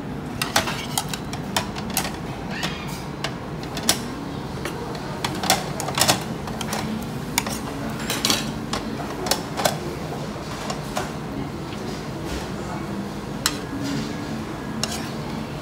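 Tableware clinking and tapping against a metal steamboat pot as ingredients are tipped in from a plate: a dozen or so sharp, short clicks at irregular intervals.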